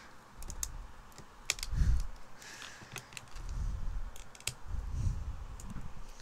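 Fingernails picking and tapping at the plastic shrink wrap on a metal collector's tin: scattered sharp clicks at uneven intervals over dull handling bumps.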